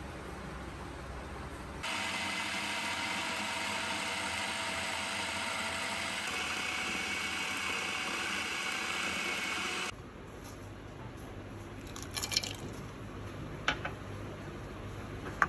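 Electric food processor motor running with a steady whine for about eight seconds, its blade chopping raw chicken mince with onion and ginger fine; it starts about two seconds in and cuts off suddenly. A few sharp clicks follow near the end.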